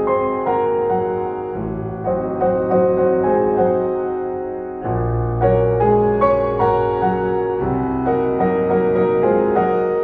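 Background piano music: sustained chords with a melody over them, and a deep bass note coming in about five seconds in.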